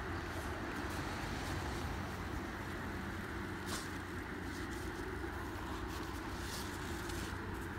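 A steady low rumble, with a couple of faint brief ticks about four and six and a half seconds in.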